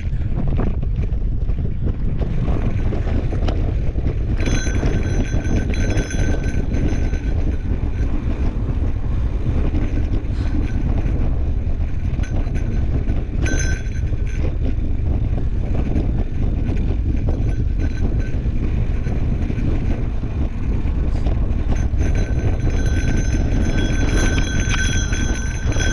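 Mountain bike riding over dirt singletrack: wind rumbling on the microphone, with tyre noise and many small rattles and clicks from the bike. A high buzz comes and goes, about five seconds in, briefly mid-way and again near the end.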